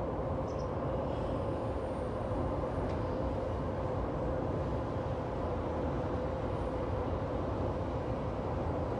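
Steady city background hum of distant traffic, even in level, with a constant mid-pitched drone running through it.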